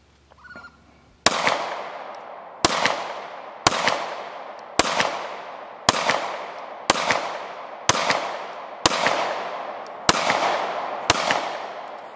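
Ten shots from a Glock 43X 9mm pistol, starting about a second in and coming roughly one a second at a steady pace. Each is a sharp crack followed by a long echo that rolls off.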